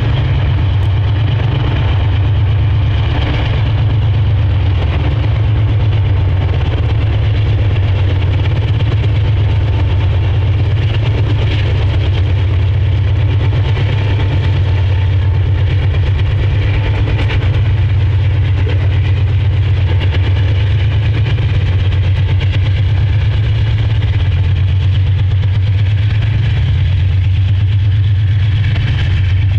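Two GE diesel-electric freight locomotives pulling a train: a loud, steady, deep engine rumble with an even pulse.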